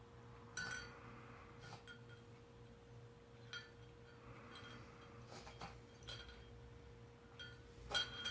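A cat eating wet food, with about eight light clinks against its food bowl, each with a short ring, coming at irregular intervals; the loudest comes near the end.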